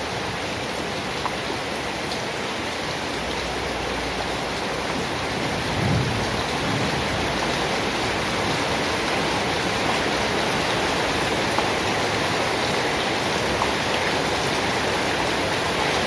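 Steady rain falling. About six seconds in there is a brief low rumble of thunder.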